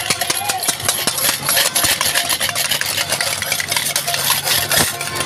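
A vehicle engine idling as a steady low hum, starting about a second in, under many sharp crackles and clicks.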